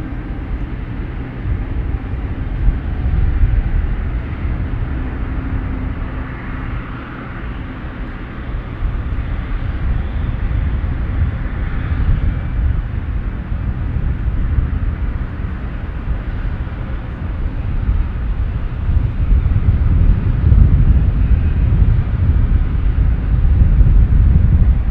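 Airliner engine noise: a dense low rumble that grows louder over the last several seconds.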